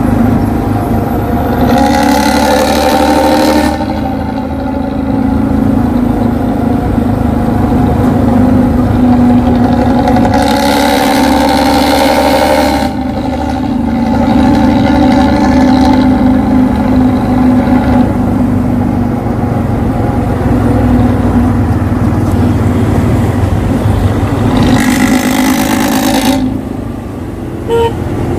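Engine running steadily, with three louder spells about 2, 11 and 25 seconds in.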